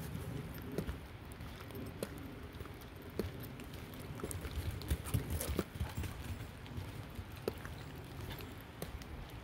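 Walking footsteps on a dirt trail strewn with dry leaves and stones: an irregular series of soft steps and small knocks, over a low rumble.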